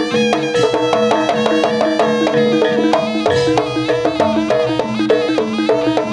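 Live traditional Javanese jaranan (kuda lumping) ensemble music: a quick melody of struck, ringing pitched notes over percussion, with more bass coming in about three seconds in.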